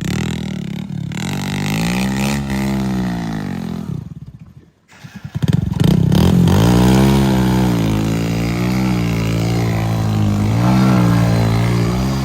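Heavy diesel engine revving up and down repeatedly. It cuts out almost completely about four seconds in, then comes back running and revving again.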